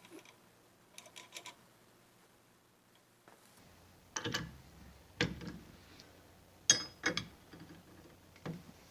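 A series of separate sharp clicks and knocks: a faint cluster of small ticks about a second in, then five louder clicks spaced about a second apart, the loudest a little past the middle.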